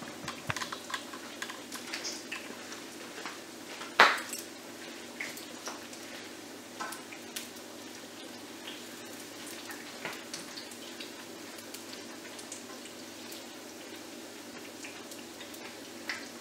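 Plantain fritters frying in oil in a skillet, crackling, while a metal spoon clicks and scrapes against the pan as they are turned, with one loud clank about four seconds in.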